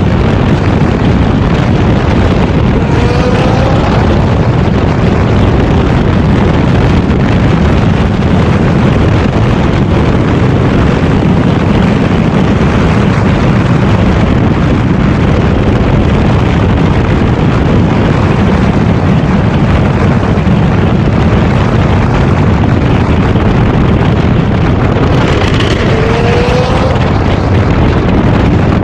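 Loud wind buffeting on the microphone at an open car window at highway speed, over the engine noise of Nissan GT-R R35s running hard. An engine note rises briefly about three seconds in and again near the end.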